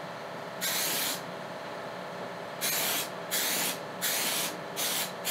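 Aerosol can of Mann Ease Release 200 release agent sprayed in short hissing bursts, about six of them: one about half a second in, then a quick run of bursts through the second half. The metal of a barreled rifle action is being coated so that bedding epoxy won't stick to it.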